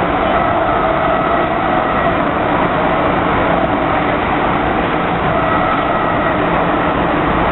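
MTR Kwun Tong Line M-Train (car C278) running between stations: a steady loud rumble with a faint traction-motor whine over it.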